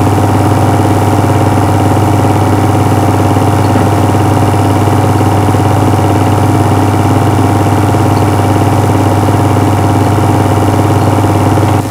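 Film projector running, a loud, steady mechanical drone with a strong low hum.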